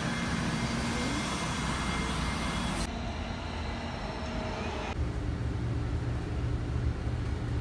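Low rumble of a subway train approaching a station platform, amid outdoor noise. About five seconds in it cuts to a steady low hum.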